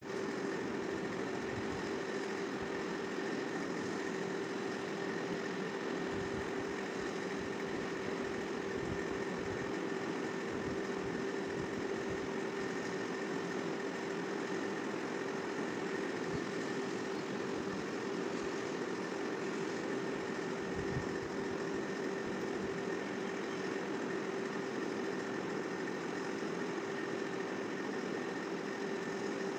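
Steady mechanical hum with a constant pitched drone and an even hiss, unchanging throughout.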